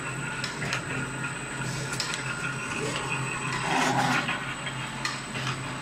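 Isobaric can filling machine running: a steady machine hum with scattered clicks and knocks, and a brief louder rush of noise about four seconds in.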